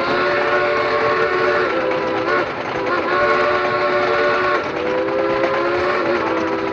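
Carousel band organ music: sustained pipe chords shifting to new chords every second or so, from the Knoebels Grand Carousel's pipe organ.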